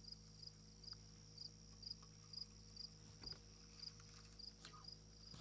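Faint insects chirping in a steady, even rhythm of about two chirps a second, over a thin continuous high-pitched buzz.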